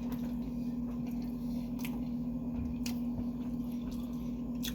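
A person chewing sushi close to the microphone, with a few sharp wet mouth clicks, over a steady low electrical hum.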